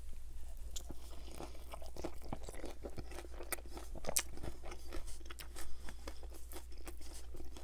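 Biting into a toasted bacon, egg and cheese breakfast burrito, then chewing it, with many small irregular crunches and wet mouth clicks.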